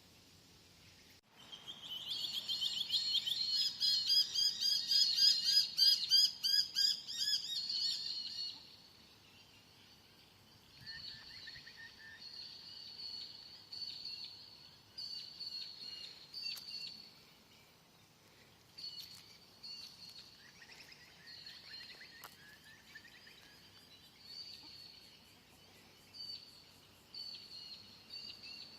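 Birds chirping in quick high-pitched runs: a dense, loud burst of twittering starting about a second in and lasting several seconds, then shorter phrases on and off.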